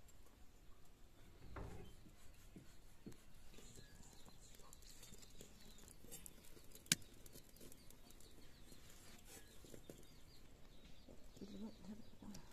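Very quiet outdoor background with faint bird calls and a few soft knocks as raw pork pieces are set into a dry aluminium wok. One sharp click comes about seven seconds in.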